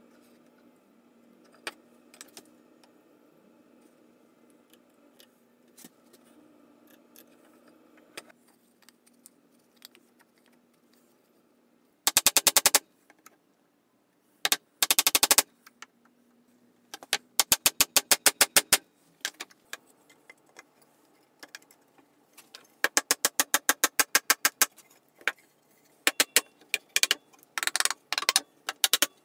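Wooden mallet knocking oak table slats into a clamped frame, in repeated quick bursts of sharp knocks about a second long, starting about twelve seconds in. Before that there are only faint scraping and light ticks of hand-tool work on the slats.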